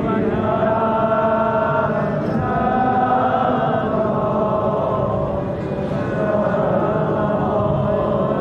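Shi'ite Muharram mourning chant: a voice chanting in long, drawn-out held notes.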